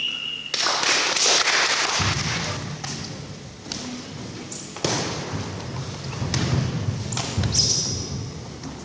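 Irregular thuds and slaps of a full-contact kempo bout: strikes landing and bare feet striking a wooden gym floor. A loud burst of noise comes in about half a second in.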